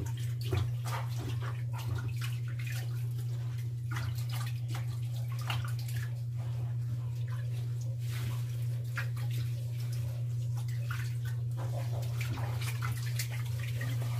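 Warm water splashing and sloshing in a stainless steel bowl as a small kitten is washed by hand, with irregular splashes and drips, over a steady low hum.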